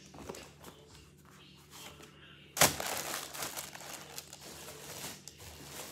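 Soft rustling of a shirt being handled, then about two and a half seconds in a sudden loud crinkle, and plastic packaging keeps crinkling as hands dig through a cardboard shipping box.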